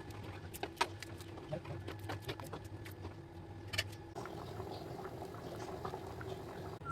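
Thick dal bubbling and popping as it simmers in a pot, over a steady low hum. The pops are sharpest in the first half, and the sound turns to a denser, softer crackle after about four seconds.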